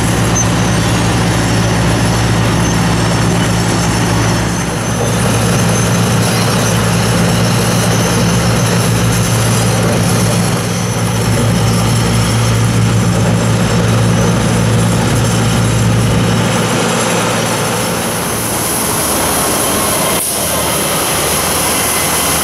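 Heavy diesel machinery of an asphalt milling machine running steadily at work, a constant low engine drone under dense grinding noise. About 17 seconds in the low drone fades, and in the last couple of seconds a tractor-driven broom sweeping the milled pavement takes over, with more hiss.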